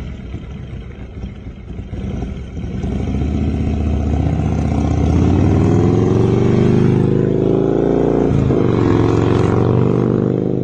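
Harley-Davidson motorcycle's V-twin engine accelerating as the bike rides up toward and past, growing louder with its pitch climbing steadily. About eight seconds in the pitch dips briefly, then climbs again.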